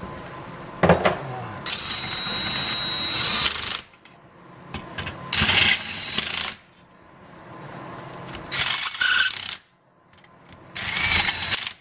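Electric impact wrench set to low torque running the case bolts into the halves of a Subaru 2.5L SOHC engine block in four short bursts, the first and longest with a faint steady whine. A sharp metallic click comes about a second in.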